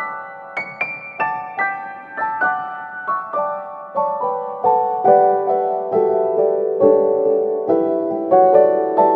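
Background piano music: a gentle melody of separate notes, two or three a second, stepping downward in pitch through the middle.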